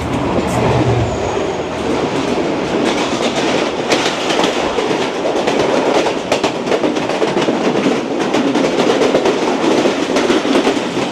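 Two passenger trains passing each other at speed on adjacent tracks: a steady rush of wheels and coaches with dense clicking of wheels over rail joints. A low locomotive engine hum fades about a second in.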